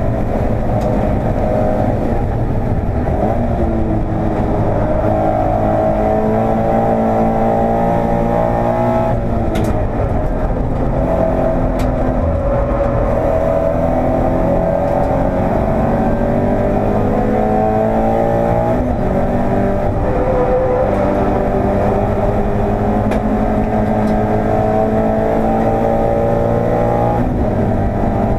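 Toyota 86 race car's flat-four boxer engine heard from inside the cabin under hard acceleration on track: its note climbs in several long pulls, each breaking off as the revs drop before climbing again.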